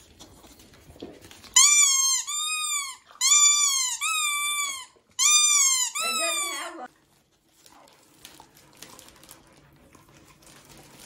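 A squeaky dog toy shaped like a soda bottle is squeezed about six times in quick succession. Each squeak is a loud, high tone that rises and then falls.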